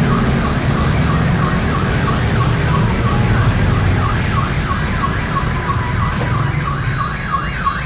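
Electronic alarm or siren sounding in quick, evenly repeated rising-and-falling sweeps, about three a second, over the low rumble of passing street traffic.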